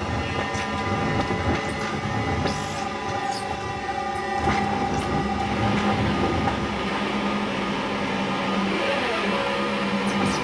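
Live noise music: a loud, steady wall of dense noise with held drone tones and grinding, clattering textures. A low humming drone comes in just under halfway through.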